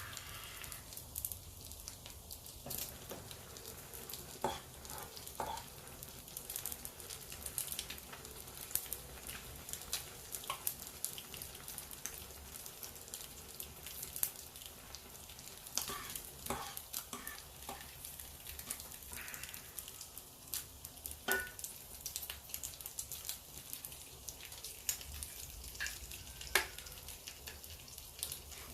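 Food frying in a pan: a steady sizzle with many sharp crackles and pops.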